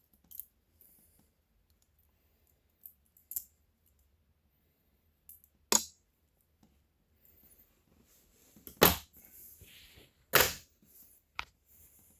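Butterfly knives (balisongs) being handled: a few sharp metallic clicks and clacks, spaced seconds apart, two of them loud, about halfway and near the end.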